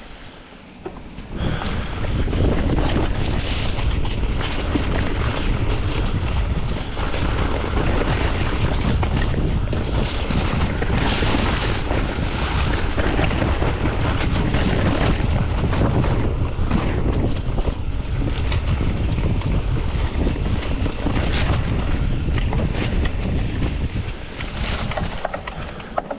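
Wind buffeting the microphone over the rumble and rattle of a mountain bike riding fast down a rough dirt trail. It comes in about a second and a half in and eases off near the end.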